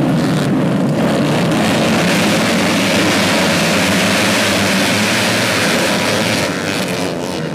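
A pack of modified 110cc underbone race bikes at full throttle together just after the start, their engines blending into one dense, steady racket that eases slightly near the end as the field pulls away.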